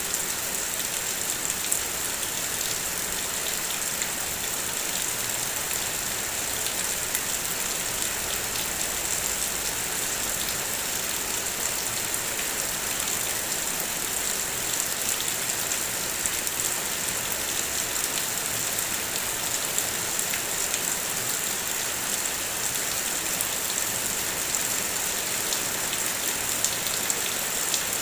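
Heavy rain falling steadily on a car's body, a constant hiss dotted with many small sharp ticks of individual drops.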